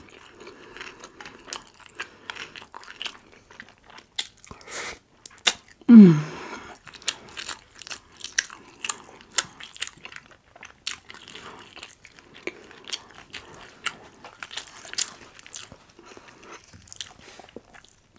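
Close-miked eating: crunchy bites and chewing with many small mouth clicks. About six seconds in there is a short, loud vocal sound that falls in pitch.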